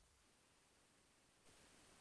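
Near silence, with only a faint hiss.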